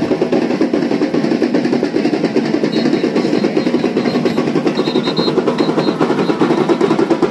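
A percussion group playing: many tambourines shaken together with drums in a dense, fast, unbroken rhythm.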